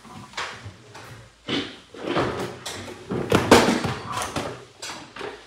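Household clatter: a string of sharp knocks and bangs, about half a dozen over a few seconds, as dishes and containers are handled and set down in a kitchen.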